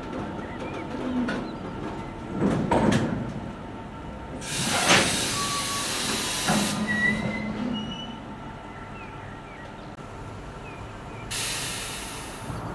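Freight train of ballast wagons hissing twice as its air brakes vent, the first hiss lasting about two seconds and the second starting near the end, with a couple of knocks from the wagons a few seconds before.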